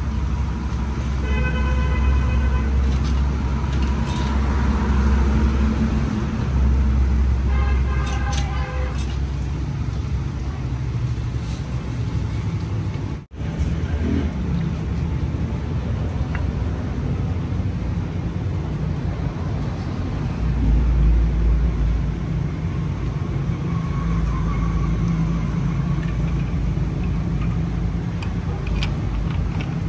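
Road traffic running steadily with a low rumble, with vehicle horns sounding twice, about a second in and about eight seconds in.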